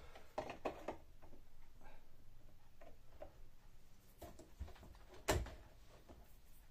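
Plastic clicks and knocks from handling a capsule coffee machine, several light ones in the first second. The loudest is a sharp clack about five seconds in, as the capsule lever on top is raised.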